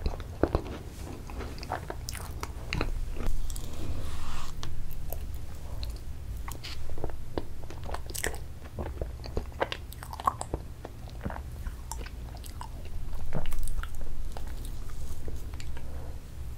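Close-miked mouth sounds of eating soft ice cream and sherbet from a plastic spoon: wet lip smacks and tongue clicks, scattered and irregular, with a couple of longer swells of smacking, over a steady low hum.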